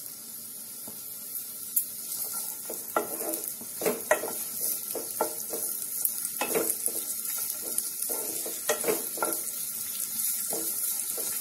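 Sliced onions sizzling steadily in hot oil in a nonstick pan. From about two seconds in, a wooden spatula repeatedly scrapes and knocks against the pan as the onions are stirred.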